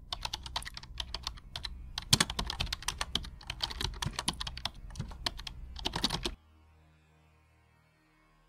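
Typing sound effect: rapid, irregular key clicks that stop abruptly about six seconds in, leaving only a faint low hum.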